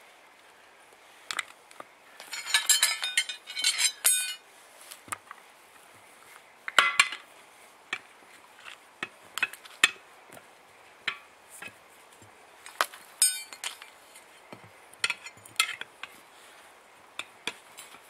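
Steel tyre levers clinking and scraping against an alloy wheel rim while prising a 4WD tyre's bead off, in scattered clicks with a few short rattling runs.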